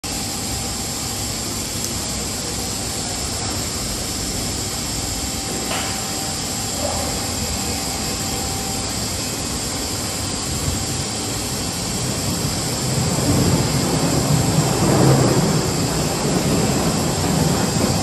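Steady din of machinery running on a rubber hose extrusion line, with a thin high hiss over it; it grows louder about two-thirds of the way through.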